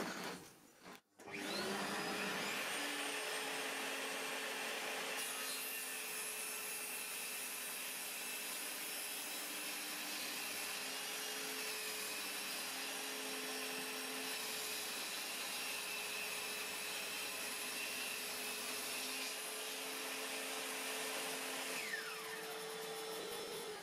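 Table saw with a freshly sharpened blue Bosch circular saw blade starting up about a second in and running steadily as it cuts through a board of hornbeam, a wood harder than oak. Near the end it winds down as it is switched off.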